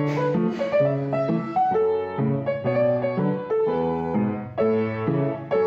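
Background piano music: a calm melody of held notes.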